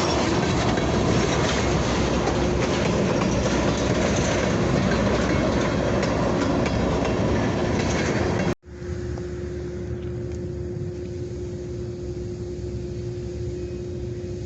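Boise Valley Railroad freight train moving on the rails, a loud, even rolling noise. About two-thirds through it cuts off abruptly to a quieter, steady engine drone with a constant hum.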